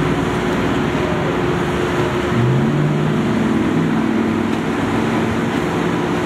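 Heavy vehicle engines running at idle over steady roadway traffic noise; a low engine note steps up in pitch about two seconds in.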